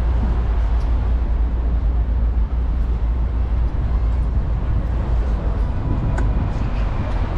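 Tour bus engine and road noise, a steady low rumble heard from the bus's open top deck.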